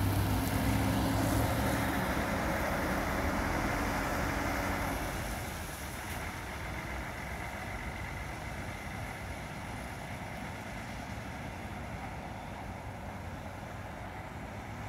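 Diesel coach bus engine running as the bus moves off, fading after about five seconds into a steady outdoor hum of wind and distant traffic.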